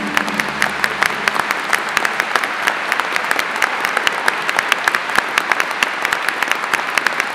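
Audience applauding with dense, steady clapping, while the orchestra's last held note fades out in the first second or so.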